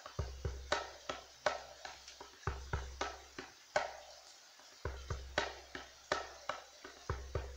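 A drum struck over and over in a loose, uneven rhythm, about two to three strikes a second, the stronger strokes leaving a deep boom that rings on briefly.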